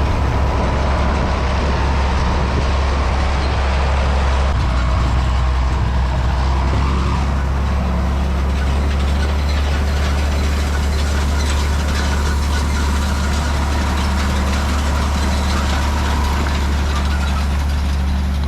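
Tractor engine running steadily while pulling a hay rake, a constant low drone with a faint steady whine above it.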